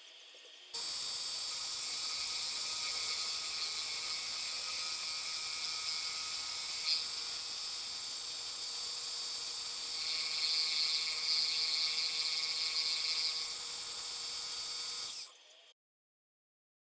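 Harbor Freight mini-mill running, a steady machine whine with a hiss of cutting noise, while it mills the square drive on a brass rod. It grows louder and harsher from about ten to thirteen seconds in, with a single click near seven seconds, and it stops abruptly about fifteen seconds in.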